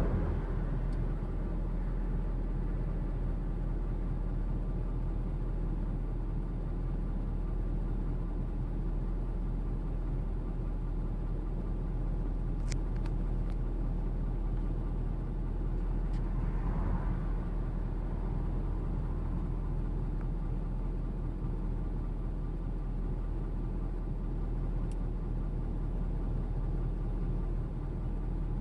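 Steady low hum of a car's engine idling, heard from inside the cabin, with a brief swell of louder sound a little past halfway and a few faint ticks.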